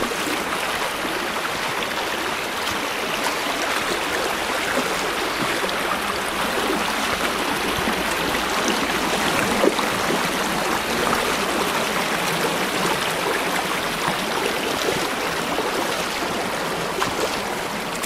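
Shallow, rocky stream rushing steadily over stones and boulders, with one brief splash about halfway through as a dog wades across it.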